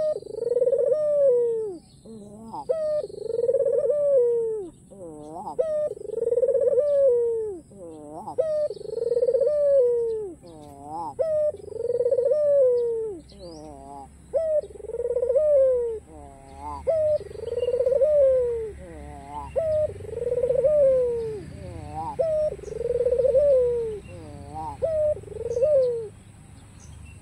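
White ringneck dove (puter) cooing over and over, a loud falling coo about every two seconds with quicker, higher notes between the coos; the calling stops near the end. Small birds chirp faintly in the background.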